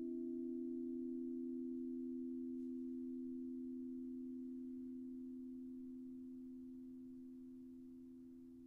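Crystal singing bowls ringing out: two steady, pure tones that slowly fade away, with a faint higher overtone dying out a few seconds in.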